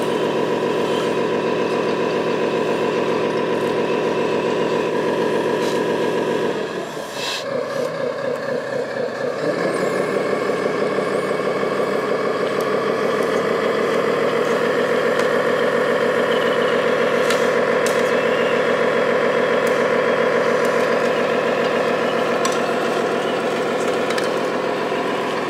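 Simulated diesel truck engine running from the sound system of a radio-controlled model truck, with the model machines working alongside. The engine note drops away about six seconds in, then comes back louder and stays up from about ten seconds in, as the tipper climbs out of the ditch.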